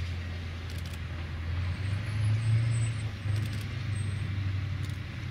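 Heavy military vehicle's engine running, a steady low rumble that swells briefly about two to three seconds in.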